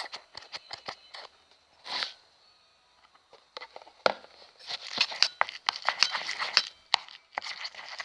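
Sticky homemade glue slime being stirred and pressed with a spatula in a bowl: irregular wet clicks and crackles, getting denser and louder about halfway through, as the slime thickens.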